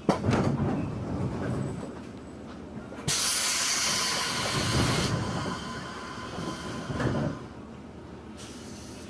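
Inside a 211 series electric train: low rumble with a knock at the start, then a sudden burst of hiss about three seconds in, which lasts about two seconds and cuts off sharply, and another loud knock around seven seconds in.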